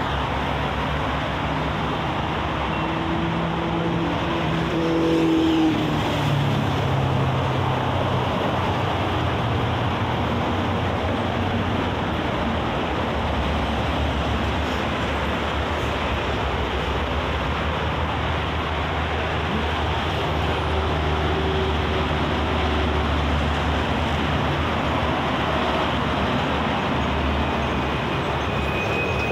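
Steady expressway traffic noise: cars, vans, buses and trucks passing at speed, with the low engine hum of heavier vehicles coming and going as they pass.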